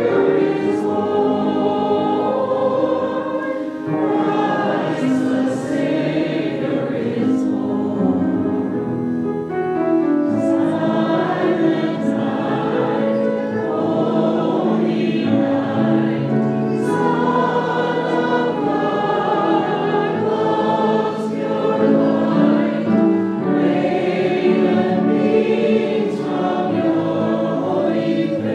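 A choir singing a sacred song with instrumental accompaniment, in held notes phrased every few seconds.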